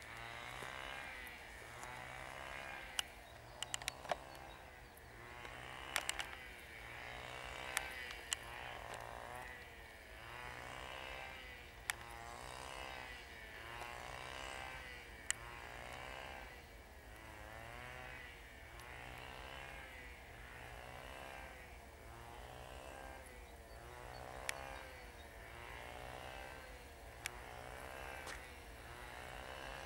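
Distant DM62 diesel locomotive's two-stroke diesel engine running as it approaches, a faint buzzing drone that swells and fades about once a second. A few sharp clicks stand out over it.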